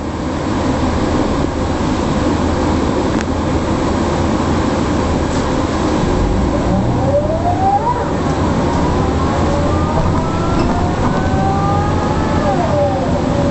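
Mercedes-Benz O405 city bus heard from inside, its diesel engine rumbling steadily, then pulling away about halfway through. A drivetrain whine rises in pitch, climbs again more slowly, and drops back near the end at a gear change.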